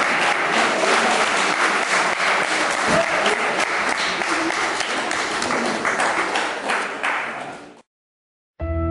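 Audience applauding, a dense patter of many hands clapping that fades out near the end. A moment of silence follows, then instrumental music begins just before the end.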